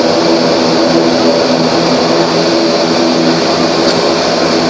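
ATR 42's twin turboprop engines and propellers heard from inside the cockpit: a steady drone with a low, even hum of propeller tones as the airliner rolls and turns on the runway after landing.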